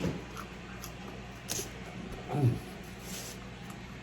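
Eating noises: a few light mouth clicks from chewing pizza, and a short voice-like sound falling steeply in pitch about two and a half seconds in, over a steady low hum.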